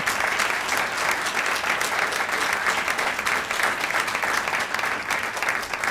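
Audience applauding: many people clapping steadily, with a dense rattle of overlapping claps.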